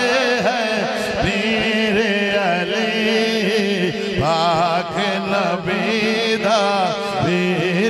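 A man chanting a drawn-out, wavering melody, the sung devotional refrain praising Ali, over a steady low drone.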